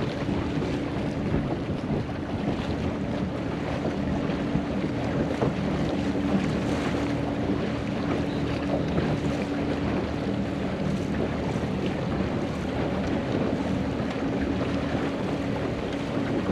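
Outboard motor of an inflatable coach boat running steadily, a constant low hum, under gusting wind noise on the microphone and water rushing past the hull.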